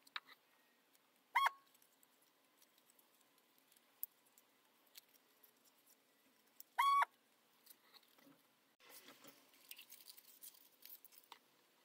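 Paper crackling and tapping as small folded paper parts are handled, with a denser rustle from about nine seconds in. Two short high chirps, about five seconds apart, are the loudest sounds; the second rises in pitch.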